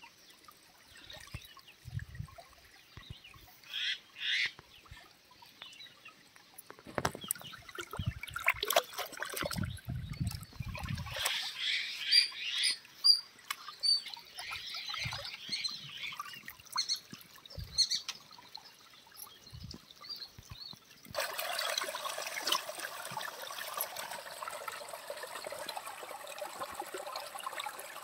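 Shallow stream water splashing and trickling as a tuna is rinsed and handled in it by hand, with scattered short splashes. A steady rush of running water sets in about three quarters of the way through.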